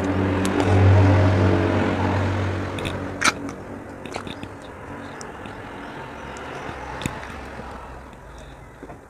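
A passing motor vehicle's engine, a low hum that swells about a second in and fades over the next few seconds. Under it are close eating and handling sounds of wet chalk paste, with one sharp crunch about a third of the way in and a few lighter clicks.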